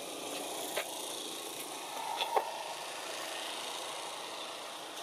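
Steady outdoor background noise with a few short, sharp clicks or snaps, the loudest a little past two seconds in.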